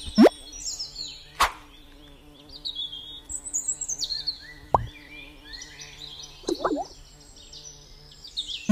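Birds chirping in many short high calls, with cartoon sound effects: a rising swoop at the start and again at the end, and short sharp pops in between.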